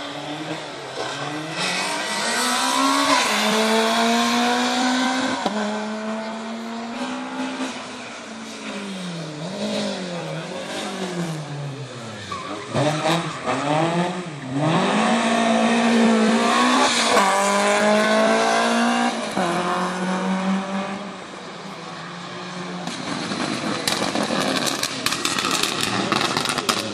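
Rally car engine revving hard as it accelerates, its pitch climbing in steps through the gears, then the revs swinging quickly up and down before climbing in steps again. Near the end the engine tone gives way to a noisy rush.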